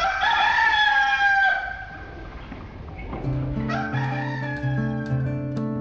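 A rooster crowing once, one long call that falls away after about a second and a half. About halfway through, strummed acoustic guitar music comes in.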